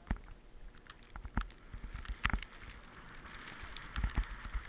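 Riding over powder snow: a hiss of snow sliding under the board, building about a second and a half in, with scattered knocks and low rumbles.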